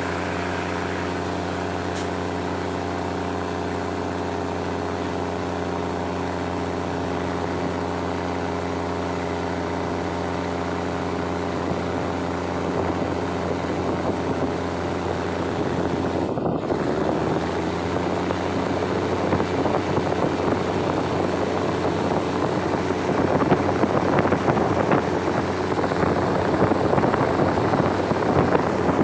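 Diesel-hauled passenger train heard from an open carriage window. The engine drones steadily for about the first half, then a rushing rumble of wheels on the rails and passing air builds and grows louder as the train picks up speed.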